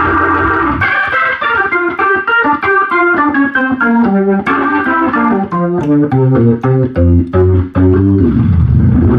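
Hammond B3 organ being played: a quick run of short, separate notes and chords stepping up and down, with low notes added from about halfway through.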